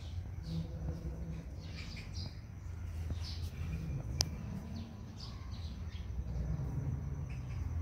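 Small birds chirping, many short high chirps in quick irregular succession, over a low steady rumble. A single sharp click sounds about four seconds in.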